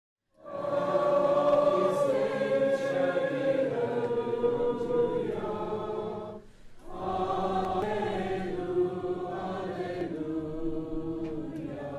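A choir singing slow, long-held notes in two phrases, with a brief pause about six and a half seconds in.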